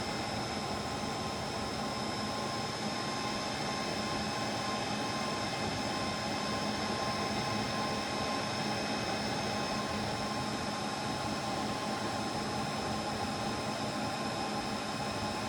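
Steady whir and hiss of cooling fans, unchanging throughout, with faint steady tones running through it.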